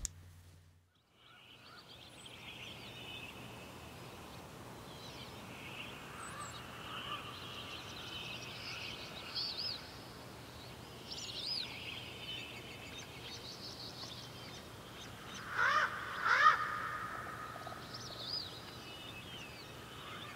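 Woodland birdsong: many small birds chirping and trilling, with two louder calls in quick succession about two-thirds of the way in. The birdsong comes in after a second or so of near silence, over a faint steady low hum.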